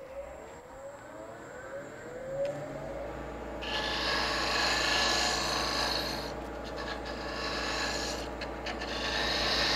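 A wood lathe spinning a small wooden knob blank while a hand-held turning tool cuts its end face flat. From about three and a half seconds in there is a steady scraping hiss of the cut, with a couple of brief breaks as the tool lifts off.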